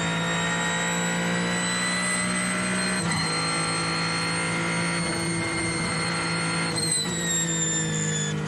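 Ferrari 499P Hypercar's twin-turbo V6 at speed, heard onboard, with a high whine over the engine note. The note climbs slowly, breaks briefly about three seconds in, and falls away near the end.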